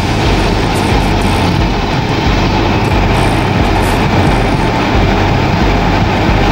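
Steady rumble of a car being driven, engine and road noise without letup.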